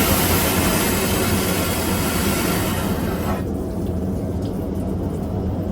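Airliner vacuum toilet flushing: a loud rushing whoosh that cuts off suddenly about three seconds in, leaving the steady low drone of the cabin in flight.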